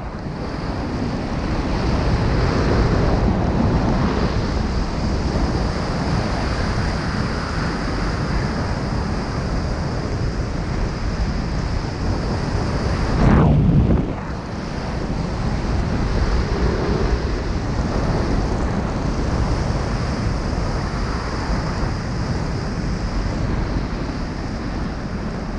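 Air rushing over a skydiver's camera microphone high above the ground: steady wind noise, with one louder low buffet about halfway through.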